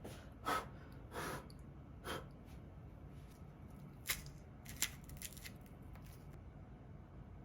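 Small handling noises: three short rustling scrapes in the first two seconds, then a few sharp clicks or taps about four to five seconds in.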